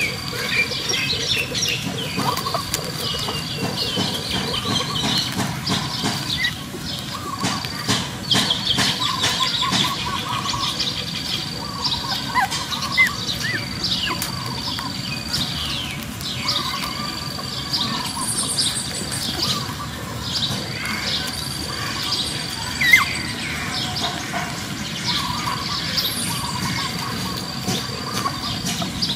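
Newborn puppies squeaking and whimpering in many short, high-pitched squeals while they crawl and nurse, with a thin steady high tone coming and going in stretches behind them.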